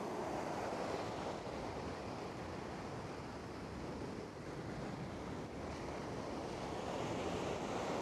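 Surf washing onto the beach in a steady rush, with wind buffeting the microphone.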